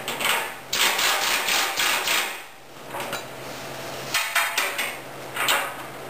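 Pneumatic impact wrench hammering lock nuts onto carriage bolts, fastening the steel cutting edge to a snow plow blade. It runs in several bursts, the longest about a second and a half from just under a second in, with shorter ones around four and five and a half seconds.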